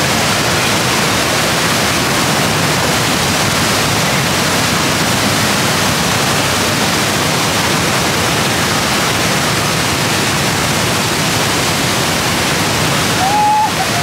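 The Rhine Falls at close range: a loud, steady rush of heavy water crashing into the river.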